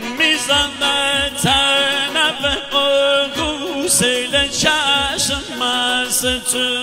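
Live Iranian folk wedding music: a male singer holds a wavering vocal line into the microphone over a keyboard accompaniment and a steady drum beat of about two beats a second.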